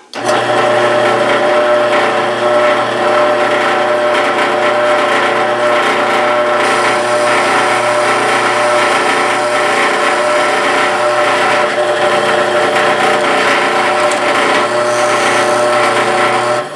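Benchtop drill press running, its bit drilling a hole through a small metal bracket: a steady motor hum with cutting noise over it. It switches on at the start and shuts off just before the end.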